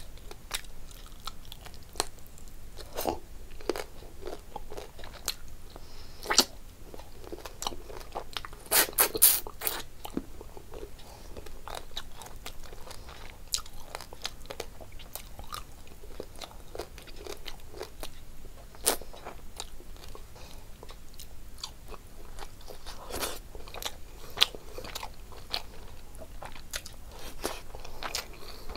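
Close-up mouth sounds of a person eating rice and curry by hand: chewing, biting and wet smacking, with irregular sharp clicks and crunches. The loudest cluster of crunches comes about nine seconds in, and another follows near twenty-four seconds.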